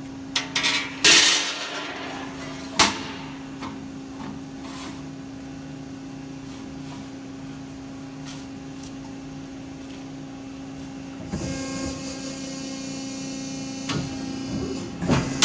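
Piranha 175-ton CNC press brake running with a steady hum, with sharp metal clanks as the steel sheet is flipped and placed against the back gauge. About eleven seconds in a louder rushing noise sets in as the machine cycles for the next bend, with more clanks near the end.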